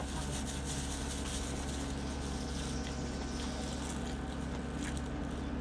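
Steady low hum with an even hiss, like a fan or motor running, and a couple of faint clicks near the end.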